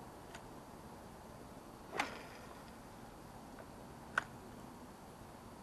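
Three short, sharp clicks over a faint steady hiss: a faint one at the start, the loudest about two seconds in with a brief swishy tail, and another crisp one about four seconds in.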